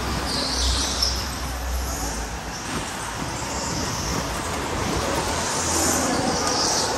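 Electric go-kart driven round an indoor track, heard from the driver's seat: a steady run of motor and tyre noise over a low rumble, with brief higher-pitched noise about half a second in and again near the end.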